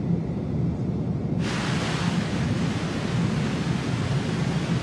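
FM radio tuned to an empty frequency: a low steady drone, then about a second and a half in a loud static hiss as the tuner moves off-station and finds no signal.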